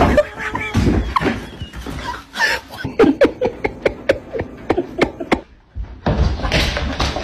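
Home-video sounds from short pet clips: people laughing and voices, mixed with short knocks and clicks.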